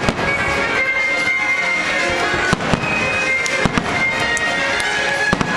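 Aerial firework shells bursting, with a few sharp bangs about halfway through and a pair more near the end, over a steady music soundtrack.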